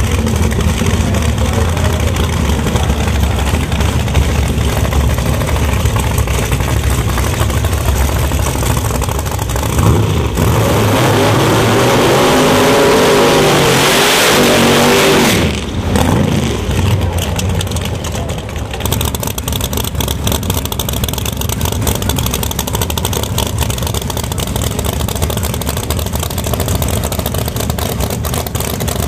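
Nitrous Pro Mod drag cars' big-block V8 engines running loudly. About ten seconds in, one car revs hard with rising and falling pitch over the hiss of spinning rear tyres in a burnout, for about five seconds, then cuts off suddenly, leaving the engines running more steadily.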